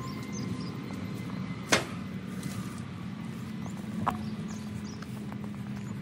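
Footsteps through grass over a steady low hum, with a sharp knock, the loudest sound, a little under two seconds in and a smaller knock about four seconds in.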